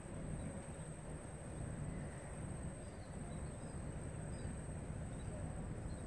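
Outdoor ambience: a steady low rumble under a thin, steady high whine, with a few faint short bird chirps around the middle.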